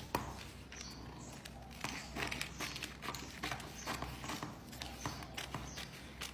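Scissors cutting through a paper sewing pattern: a run of repeated snips with paper rustling between them.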